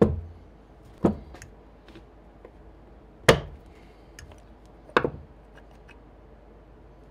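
Four sharp knocks, about a second or two apart, with small clicks and rattles between them, from hands and tools working on the ARB compressor's motor casing to get its back open.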